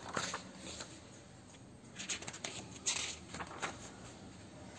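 Paper pages of a softcover textbook being turned by hand: a handful of short rustles and flicks, spread through.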